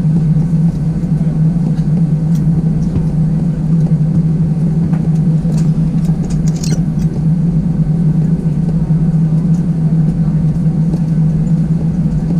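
Steady low hum and rumble inside the cabin of an Airbus A320-200 after landing, with a few faint clicks and knocks around the middle.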